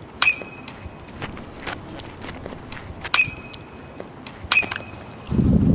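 Metal baseball bat hitting tossed balls three times, each a sharp ping with a short ringing tail. A low rumble starts near the end.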